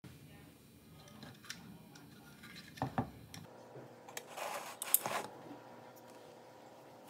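Hands handling a homemade inverter board and a microwave-oven transformer with its loose wires on a wooden tabletop: light clicks and knocks, a short scrape and rustle, and a sharp click about five seconds in. A faint steady hum sits underneath from about three and a half seconds in.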